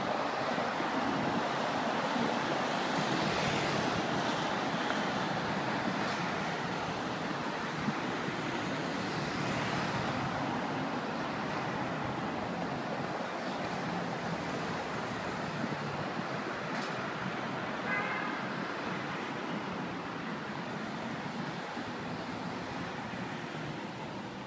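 A motorcade of large SUVs and police vans driving past on a multi-lane road: steady tyre and engine noise of passing vehicles, slowly fading near the end.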